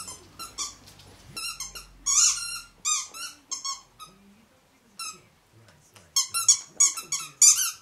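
A puppy chewing a squeaky dog toy, the squeaker going off in quick runs of short high squeaks, with a lull about halfway through.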